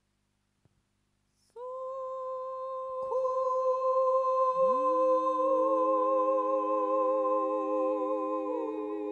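Voices humming long held notes that come in one at a time, about a second and a half apart, building a three-note chord. The lowest note slides up into place, and the upper notes later shift pitch and take on a slow vibrato.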